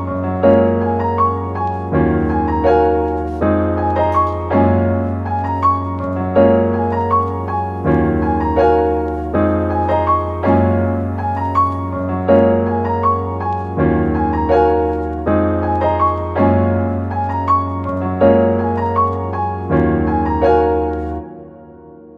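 Background music: a piano-led instrumental with a steady repeating rhythm over a held bass, fading out near the end.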